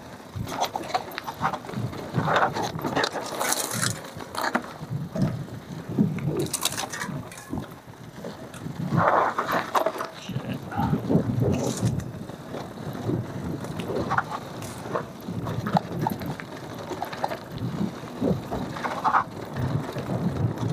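Cube Analog mountain bike ridden over a rough dirt trail: tyres on dirt and the bike rattling and knocking over bumps in irregular bursts.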